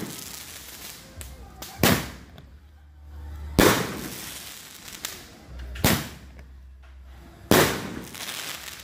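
8-shot firework tube firing its shells one after another: four sharp bangs about two seconds apart, each followed by a fading hiss.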